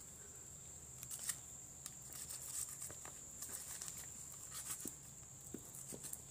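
Faint wet handling noises, soft irregular ticks and rustles, as turtle meat is pulled and torn by hand from the opened shell. A faint steady high-pitched whine sits underneath.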